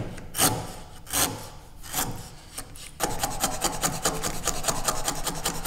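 Veritas router plane blade scraping across the wood floor of a halving-joint housing, taking fine final passes down to the baseline. A few separate scrapes come first, then about three seconds in a quick, even run of short rasping strokes, about five or six a second.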